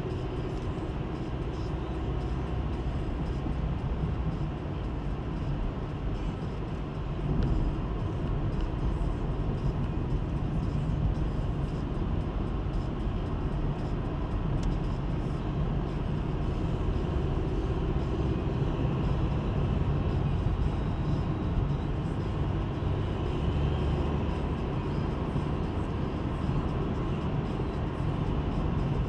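Car with a 1.7 CDTI diesel engine driving along at a steady pace: a continuous low engine and road rumble, getting a little louder about seven seconds in.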